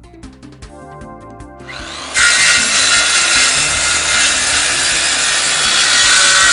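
A power saw cutting through a laminate floor board: a loud, steady cutting noise that starts abruptly about two seconds in and runs about four seconds, over background music.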